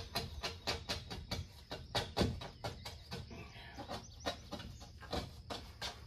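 A dull razor blade scraping old window tint and its adhesive off wet car window glass in short, quick strokes, several a second. The film is stuck fast, so each stroke lifts only a little.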